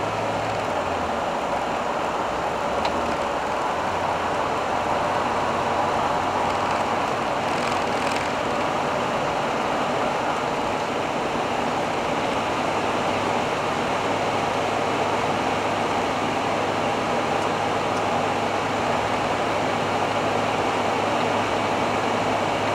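Steady engine and road noise of a 1985 Hobby 600 motorhome on a Fiat Ducato base, driving at highway speed and picking up from about 70 to 90 km/h.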